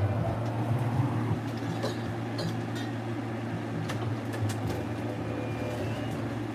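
A steady low mechanical hum, with a few faint light clicks over it.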